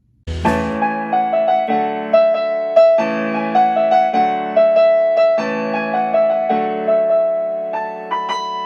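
Outro music: a melody played on an electric piano, starting suddenly a fraction of a second in, with notes changing about twice a second.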